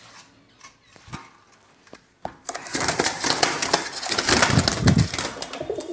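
A few light clicks, then from about two seconds in, pigeons flap and scramble in a wire cage as a hand reaches in among them: a loud, dense clatter of wingbeats and scuffling against the mesh and floor.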